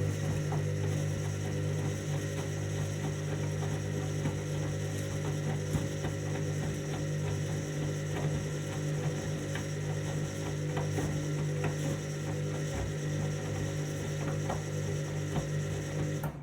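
Washing machine running on a cottons 60-degree programme: a steady motor hum with scattered clicks and ticks from the drum. It cuts off abruptly near the end.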